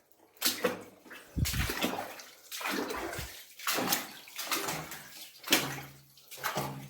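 Footsteps wading through water, a splash and slosh with each step in quick, uneven succession.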